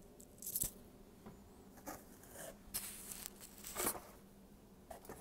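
Several short rustles and scuffs, spaced about a second apart, from a T-shirt and box packaging being handled and moved about.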